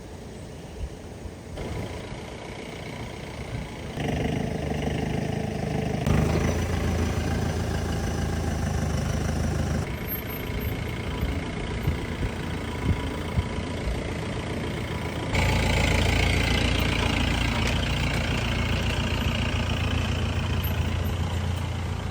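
Mahindra jeep's DI turbo diesel engine running steadily at low revs. Its loudness and tone change abruptly several times, loudest in the last third.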